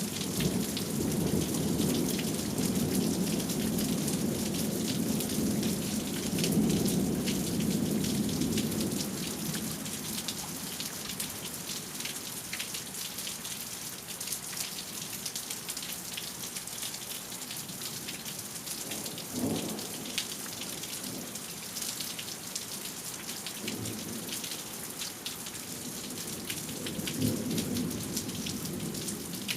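Steady rain falling with pattering drops, and thunder rumbling for the first several seconds before fading away. Later a short sharper thunder crack comes about two-thirds of the way through, with a few faint rumbles near the end.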